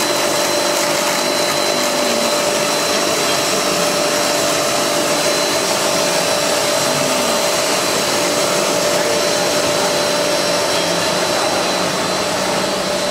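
PE air bubble film machine running: a steady whir of motors and blowers with a constant hum and a thin high whine over it.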